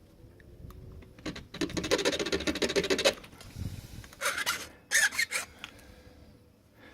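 Hand file rasping across a metal MS2 key blank: one long stroke, then two shorter ones, filing down the cuts where the lock has left impression marks.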